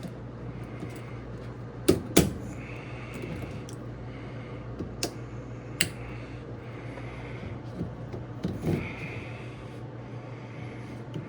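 Hose clamp pliers squeezing and releasing spring hose clamps on a washer's drain pump hoses: a handful of sharp clicks, the loudest two close together about two seconds in, with light handling noise between.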